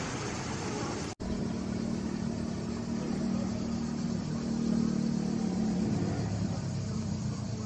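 A steady low mechanical hum, like a motor running, holding one pitch for several seconds after a brief stretch of background noise. The hum weakens about six seconds in.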